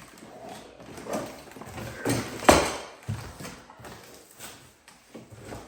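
Hard parts of a DeWalt DWX724 miter saw stand, its saw-mounting brackets and end rollers, knocking and clattering as they are handled, with irregular hollow knocks, the loudest about halfway through.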